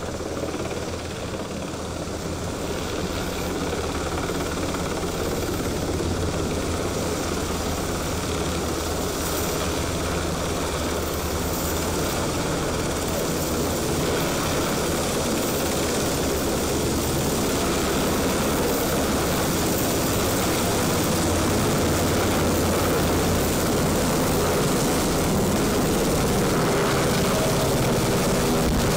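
UH-60 Black Hawk helicopter's main and tail rotors and twin turboshaft engines, flying low overhead and then hovering just above the ground, growing steadily louder. Steady engine tones come through near the end as it hovers close.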